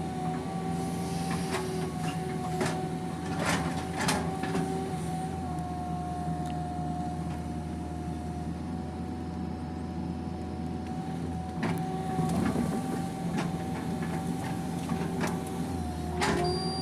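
PC200 hydraulic excavator running steadily while digging a ditch, heard from inside the cab: a constant engine hum with a steady high whine, broken by scattered sharp knocks and clanks.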